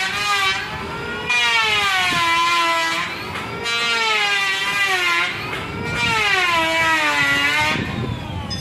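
Wood planing machine whining as it cuts, its pitch sagging and recovering in three long swells as boards are fed through. The wavering whine sounds like a voice calling "Ema".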